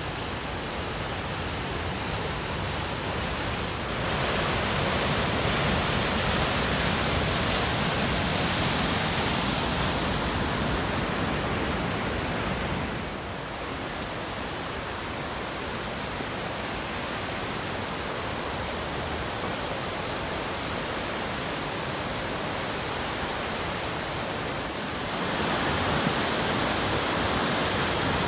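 Rushing water of the McCloud River falls in snowmelt: a steady rush of falling water, dropping a little about halfway through and rising again near the end.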